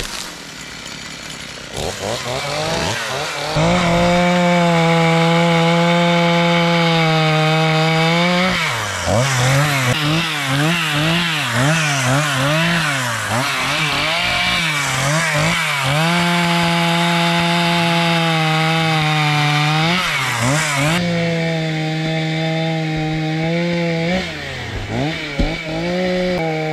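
Two-stroke chainsaw bucking felled spruce at high revs. Its pitch holds steady for several seconds at a time, then wavers up and down as the throttle is worked.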